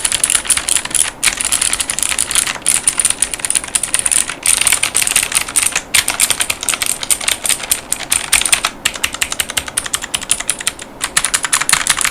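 Fast typing on a Yunzii X75 mechanical keyboard with Yunzii Crystal White 50 gf tactile switches and clear polycarbonate Cherry-profile keycaps. Rapid runs of keystrokes break off in brief pauses every second or two.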